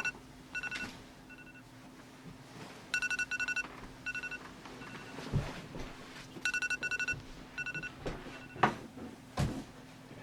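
iPhone alarm tone going off: groups of rapid, high electronic beeps that thin out and fade at the end of each group, repeating about every three and a half seconds. A few soft knocks come in the second half.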